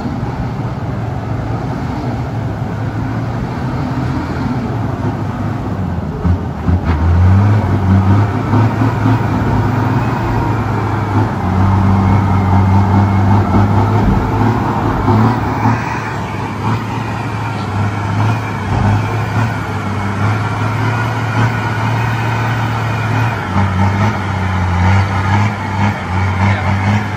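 Diesel engine of an Isuzu dump truck pulling hard under heavy load as the truck grinds forward through deep mud. The engine note swells about seven seconds in, eases off around sixteen seconds, then swells again near the end.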